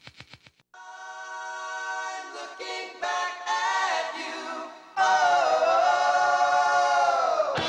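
Soundtrack music: voices singing held chords a cappella, choir-like. The chords change every second or two and grow louder from about five seconds in, then cut off just before the end. A quick, even ticking fades out at the very start.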